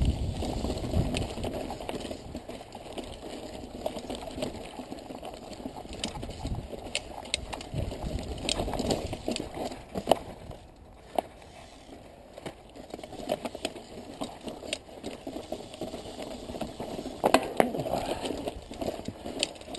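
Mountain bike grinding slowly uphill over loose rock and gravel: tyres crunching on stone, with frequent sharp clicks and knocks as the bike rattles over rocks. There is a brief quieter stretch about halfway through, and a busier cluster of knocks near the end.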